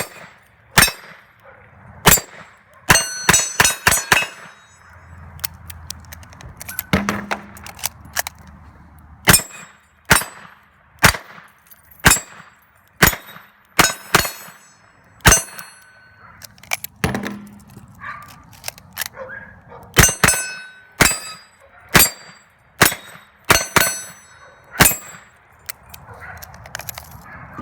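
Smith & Wesson 929 Performance Center 9mm revolver fired in a long string of shots, mostly about a second apart with a quick burst of several a few seconds in, many of them followed by the ringing clang of hit steel targets.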